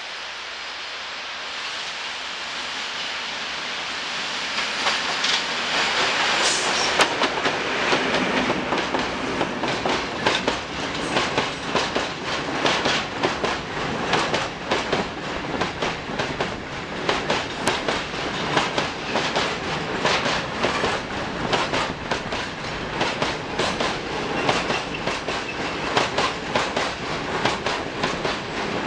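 ST48 diesel locomotive approaching and passing about six seconds in, followed by a long train of loaded pear-shaped powder wagons rolling by, their wheels clattering in a steady rhythm over the rail joints.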